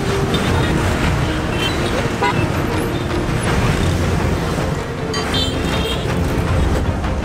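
Busy street traffic of motor scooters: a dense, steady engine and road rumble as they pass, with a horn beeping about five seconds in.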